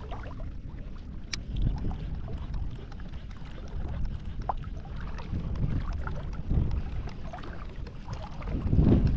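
Wind buffeting the microphone over small lake waves lapping, a low rumble that surges several times and is strongest near the end.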